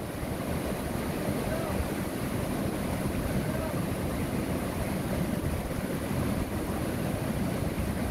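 Swollen monsoon mountain river rushing over rapids: a steady, unbroken rush of whitewater.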